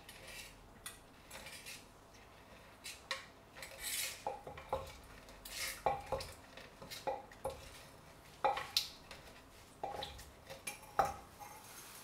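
Pestle pounding garlic, lemon, chili and tomato in a mortar, with a spoon clinking against it: irregular knocks and clinks, one or two a second.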